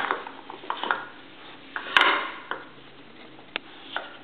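Round wooden rods knocking and clacking against each other and the wooden frame of a dog puzzle box as a dog noses and lifts them. Several separate clacks with small ticks between them, the loudest about halfway through, followed by a short rattle.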